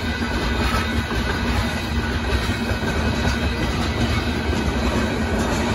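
Loaded limestone hopper cars of a Union Pacific freight train rolling steadily past at a grade crossing: an even, unbroken noise of steel wheels on the rails.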